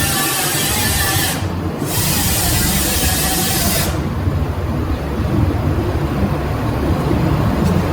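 Steady spraying air hiss over background music. The hiss breaks off briefly about a second and a half in, then stops abruptly near the middle, leaving the music alone.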